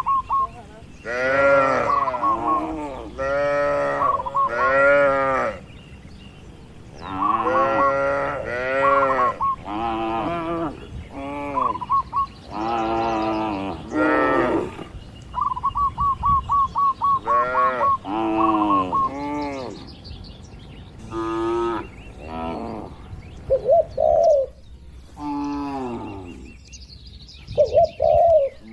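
Cattle mooing over and over, long calls of a second or two each, one after another at differing pitches.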